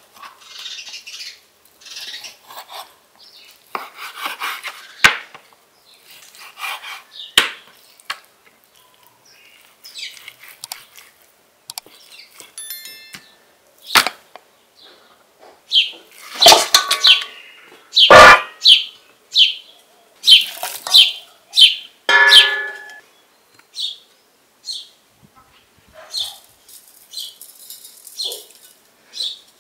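Kitchen knife cutting raw lamb on a wooden board, and the cut meat being handled and moved into a bowl: scattered knocks, scrapes and rustles, the loudest a little past the middle, and one brief ringing clink of a dish. Small birds chirp repeatedly through the second half.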